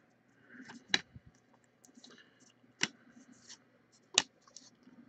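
Baseball trading cards being sorted by hand. There are three sharp card snaps about a second and a half apart as cards are flicked off the stack onto a pile, with faint rustling of card stock in between.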